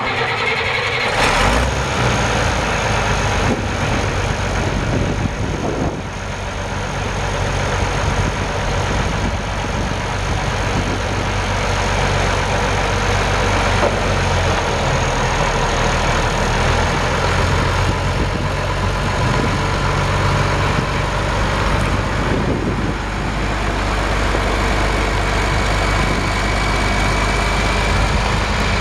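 The International 466 diesel engine of a 1976 International 4366 four-wheel-drive tractor runs steadily at idle, then the tractor pulls away in the second half.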